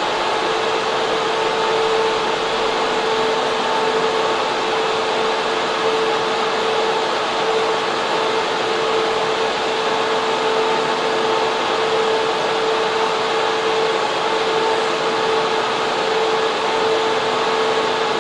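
Data center server room: cooling fans and air-cooling equipment running, a loud, steady rush of air with a constant hum and a fainter higher whine running through it.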